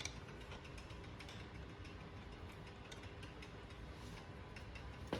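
Faint, irregular mechanical ticking as the left pedal is threaded into a road bike's crank arm, with a sharper click near the end.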